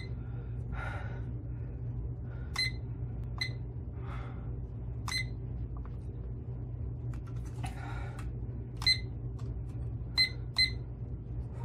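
Digital timer beeping as its buttons are pressed to set it to two minutes: about seven short, high single beeps spaced irregularly, each one a button press.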